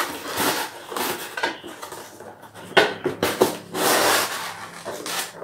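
Stiff cardboard being cut and pulled away in pieces: a run of scraping and rustling with a few sharp snaps and knocks.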